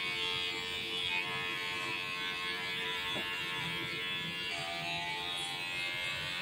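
Cordless electric hair clipper running with a steady buzz as it trims the short hair low on the back of the head, blending the fade. Its tone shifts a little about four and a half seconds in.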